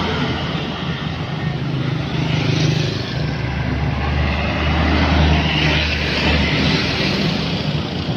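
Road traffic passing close by: a box truck's engine going by at the start, then a deep engine drone swelling as another vehicle passes about four to six seconds in, with motorbikes going by near the end and tyre noise throughout.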